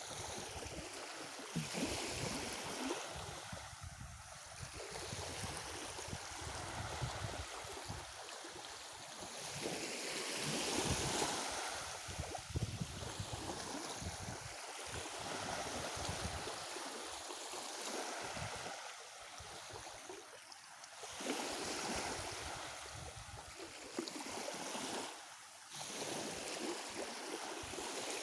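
Black Sea waves washing onto the shore, the rushing hiss swelling and falling away every few seconds.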